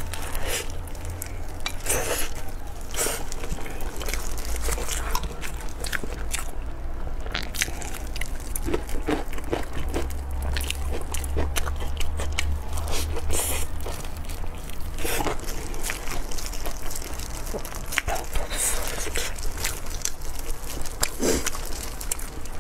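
Close-up eating sounds: biting into and chewing a fried, sesame-crusted stuffed bun, with crunching, wet chewing and irregular crackles as it is torn apart. A steady low hum runs underneath.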